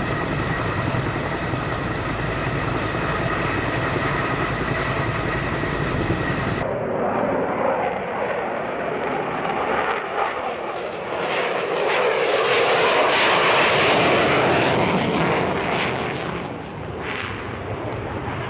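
Jet aircraft engine sound. At first a steady jet whine over a low rumble. After an abrupt cut, the noisy rush of a jet grows louder, peaks, fades, and briefly swells again near the end.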